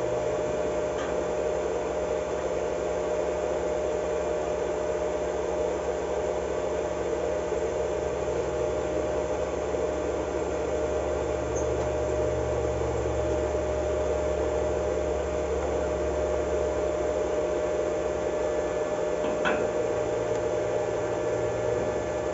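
Steady machine hum with a constant whine, typical of a welding machine switched on and idling with its cooling fan running, no arc struck. One small click about three seconds before the end.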